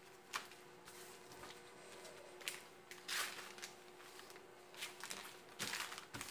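Fabric and self-adhesive plastic film rustling and crinkling under hands as they are smoothed and pressed flat, in a few short swishes.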